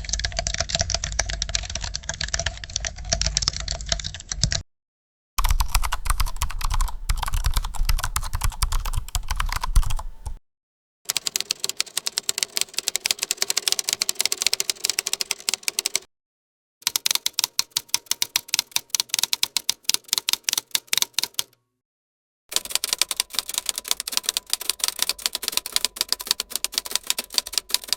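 Fast typing on computer keyboards: dense, rapid key clicks in five separate takes. Each take cuts off abruptly, with short silent gaps between them; the first two takes have a heavier, thuddier low end than the later ones.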